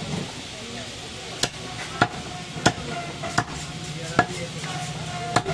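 A butcher's cleaver chopping goat meat on a wooden stump chopping block: about six sharp chops, a little under a second apart.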